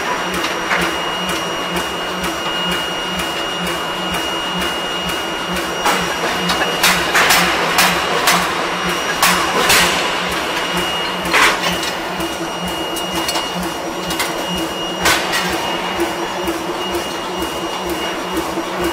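Axial closed die rolling machine running with a steady drone and a high whine as it rolls a red-hot steel ring, with several sharp metallic knocks at irregular intervals.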